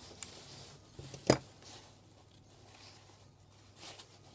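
Hand tools handling a power supply circuit board: a small tick near the start, one sharp click about a second in, then faint handling noise.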